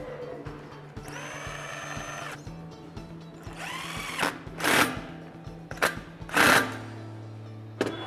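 Cordless power driver running bolts into a valve stem connecting block. It makes one run of about a second and a half that rises and then holds, then several shorter runs, each rising in pitch, with the last two loudest as the cap screws tighten down.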